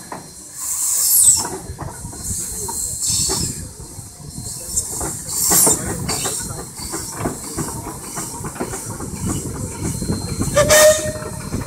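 Steam traction engines running, with surges of hissing steam about one, three, five and eleven seconds in over an uneven low rumble; the last and loudest surge carries a short steady tone.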